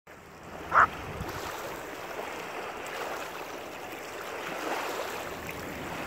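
Small waves lapping and washing over a pebble shore, with a steady rush of water and light wind. About a second in there is one brief, high-pitched blip, louder than the water.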